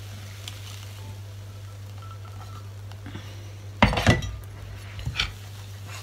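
A metal spoon clinking and knocking against a glass mixing bowl as cheese-bread batter is stirred: a quiet stretch, then a cluster of sharp clinks about four seconds in and another about a second later, over a steady low hum.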